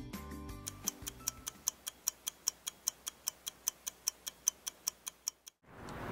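A clock ticking sound effect: quick, even ticks about five a second that stop abruptly, as the background music fades out under them. A steady hiss of outdoor background noise comes in near the end.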